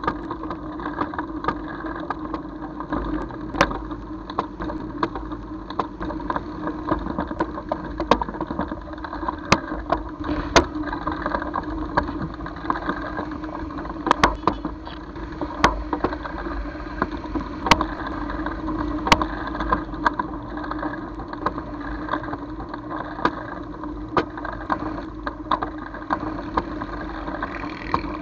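A vehicle engine running with a steady hum through slow traffic, overlaid by frequent sharp clicks and rattles.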